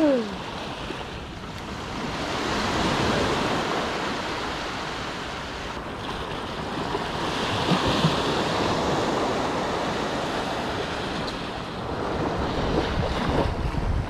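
Small waves breaking and washing up a sandy beach, the surf rising and falling with each wave, with wind buffeting the microphone.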